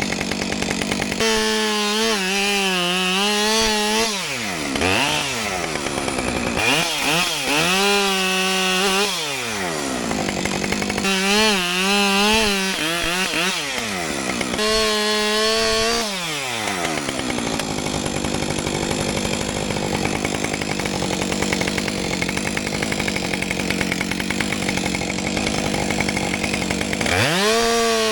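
Gas chainsaw cutting downed timber: the engine is brought up to full throttle and bogs and wavers under load in the cut, then winds down as the trigger is let off. This happens about five times, with a longer stretch of lower, steadier running in the second half.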